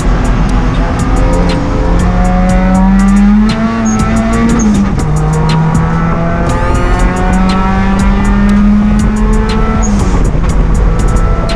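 Turbocharged Honda D16 four-cylinder engine in an EK Civic pulling hard at high revs on track. The pitch climbs slowly, then drops at an upshift about four to five seconds in and again near the end, with sharp ticks over the engine note.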